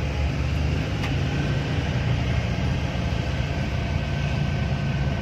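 Steady engine drone and road noise of a moving vehicle heard from inside its cab, with a low rumble underneath.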